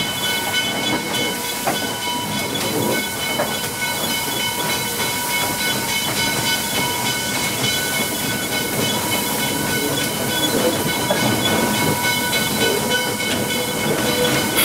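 Steam locomotive heard from inside its cab: a steady hiss of steam over the running noise of the engine, with several steady whistling tones on top.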